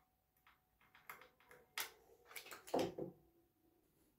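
Faint, scattered light clicks and knocks of a wooden board and hand tools being handled on a workbench, the sharpest click a little under two seconds in and a small cluster of knocks just before the three-second mark.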